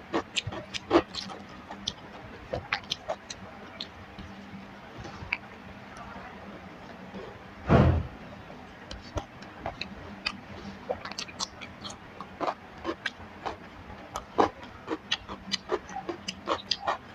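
Close-miked eating sounds: chewing, wet lip smacks and mouth clicks from a person eating rice and curry, in irregular quick bursts. About eight seconds in there is a single louder dull thump.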